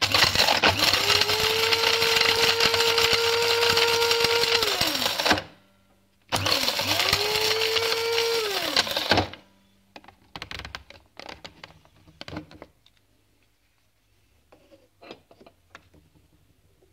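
Electric coffee grinder grinding chunks of chaga mushroom. The motor spins up to a steady whine and runs for about five seconds before winding down, then runs again for about three seconds. After that come scattered short knocks and clicks as the grinder is handled and its lid taken off.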